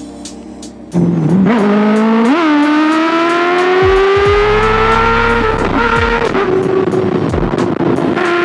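Kawasaki ZX6R's 636cc inline-four engine comes in loud about a second in and accelerates hard, its pitch jumping up through the gears and then climbing steadily. It eases off around six seconds and settles to a steady cruise, with wind rushing over the microphone.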